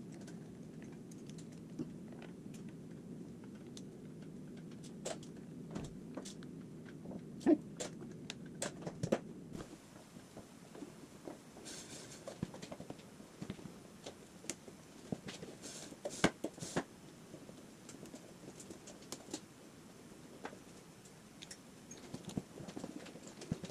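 Scattered light clicks, taps and knocks of hand work on a motorcycle, such as tools and parts being handled. A low hum sits under them and drops away about ten seconds in.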